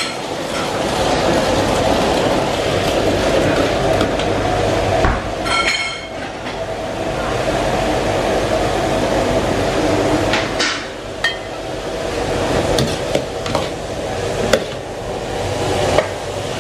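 Wok cooking on a gas burner: a steady rush of burner flame and frying, with a metal ladle clinking and scraping against the steel wok several times.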